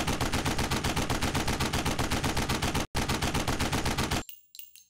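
Sustained automatic machine-gun fire, about ten shots a second, with a brief break just before three seconds in. The firing stops about four seconds in and gives way to faint, light metallic clinks.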